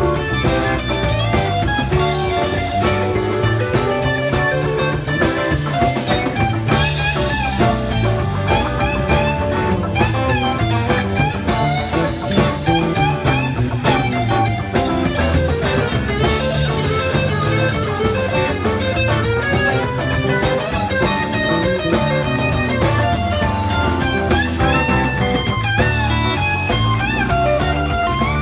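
Live rock band playing an instrumental passage: electric guitars and bass guitar over a drum kit, with bending guitar lines and no singing.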